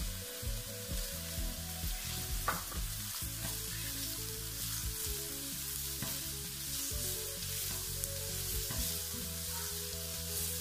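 Chopped onion and garlic sizzling in hot olive oil in an enamelled pan, stirred with a spoon that now and then scrapes the pan bottom.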